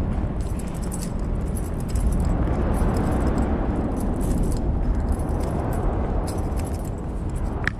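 Continuous low rumbling noise that swells a little about two seconds in, with light jingling and clicking over it.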